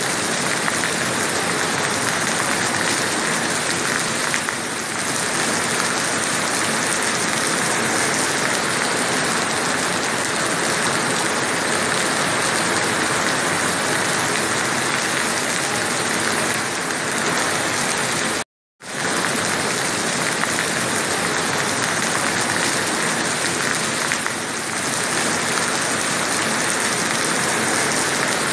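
Heavy rain falling steadily as a dense, even hiss. About two-thirds of the way through it cuts out completely for a split second.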